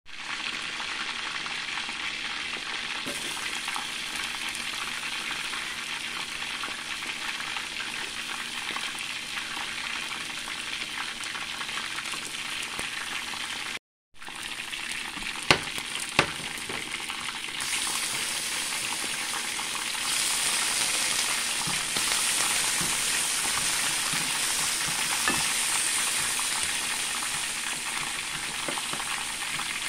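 Onions frying in oil in a stainless steel pan, a steady sizzle that grows louder in the second half. There are two sharp knocks just after the middle and a brief dropout where the sound cuts out.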